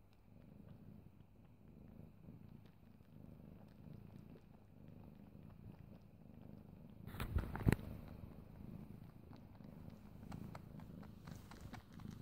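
A domestic cat purring steadily. A brief rustle and thump about seven seconds in is the loudest moment.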